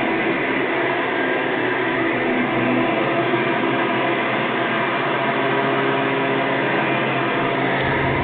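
Hoover Soft and Light Supreme upright vacuum cleaner running steadily, its motor and wooden brush roll giving a loud, even whir with a few steady tones through it.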